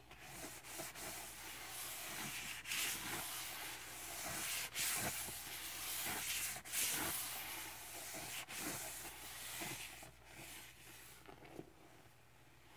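Rubber-gloved hands squeezing and stirring sponges through a foamy powder-cleanser paste in a plastic bucket: a wet, rubbing hiss of suds and sponge. It grows louder toward the middle and fades near the end.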